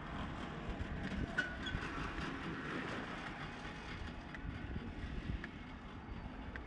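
Steady outdoor ambience with a low rumble, with a few faint clicks and a brief high chirp about one and a half seconds in.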